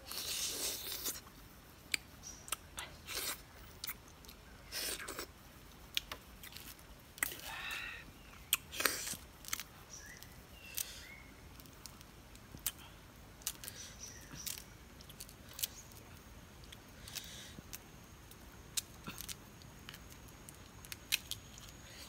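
Hand-peeling and eating scaly snake fruit: sharp clicks and crackly snaps of the scaly skin being broken and pulled off, with bites and chewing, in irregular short bursts.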